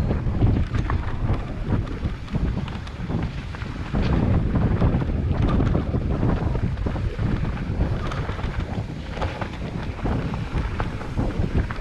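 Wind buffeting the microphone, a continuous low rumble, with many small knocks and rattles scattered through it.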